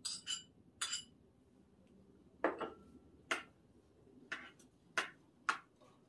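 A spoon clinking against a bowl and the pot as clam meat is scraped into a pot of cheonggukjang stew. There are about eight sharp clinks at irregular intervals, a few of them ringing briefly.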